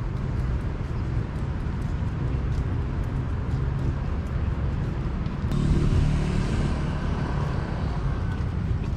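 Outdoor roadside ambience with a steady low rumble of traffic, and a vehicle passing, louder, from a little past halfway.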